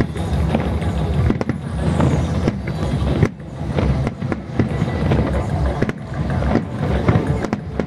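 Aerial fireworks shells bursting over the water in quick succession: a run of sharp bangs, roughly two a second, over a steady low rumble, with a brief lull a little past the middle.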